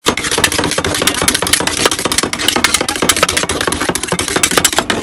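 Steel spatulas chopping and tapping fast on the stainless steel cold plate of a rolled-ice-cream machine, breaking fresh fruit into the cream base: a dense run of sharp metal clicks, several a second.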